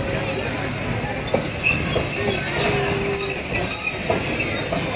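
Passenger train cars rolling past, their steel wheels squealing on the rails in a high squeal that comes and goes over the rumble of the train. It grows louder about a second in.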